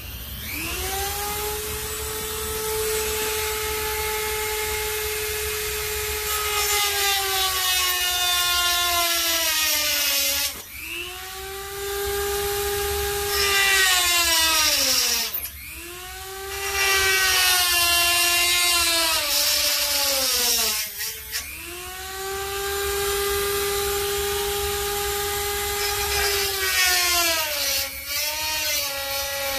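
Handheld rotary tool with a cut-off disc cutting through a body-panel lip: a high steady motor whine whose pitch sags several times as the disc bites under load, dropping out briefly a few times.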